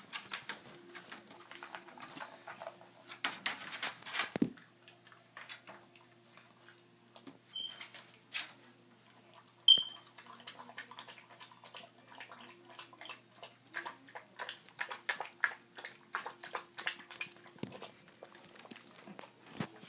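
A pug eating dry food from a plastic bowl: a dense, uneven run of crunching chews and clicks, with the bowl knocking. A few brief ringing clinks, the loudest about ten seconds in, over a faint steady hum.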